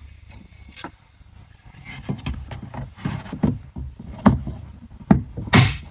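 Scattered sharp plastic clicks and knocks from handling a car's rear power window switch and its wiring connector while it is plugged in and fitted, the loudest strokes in the second half.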